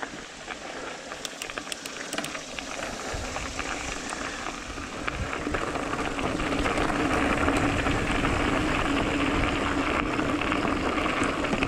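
Mountain bike rolling on a dirt trail: tyre and wind noise that grows louder from about five seconds in as speed builds, with a steady hum underneath and a few light clicks early on.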